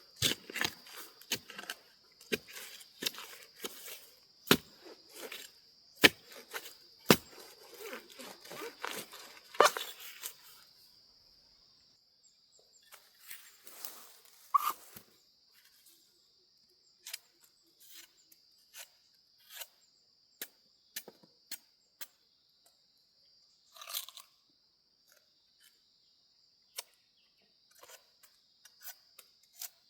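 Dry plant material crunching and tearing in quick, irregular crackles for about ten seconds, then only scattered clicks, over a steady high-pitched tone.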